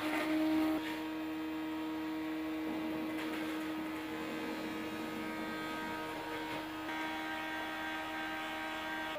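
Electric hammer mill running at speed, a steady hum with a whine from its motor and spinning blades as it shreds apples fed through the hopper.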